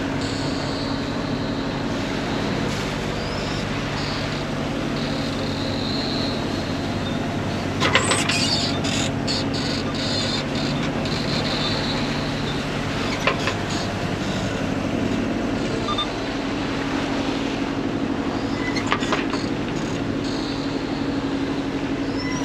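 A sailboat's engine running steadily under a rushing of wind and sea, with a few sharp knocks about 8, 13 and 19 seconds in.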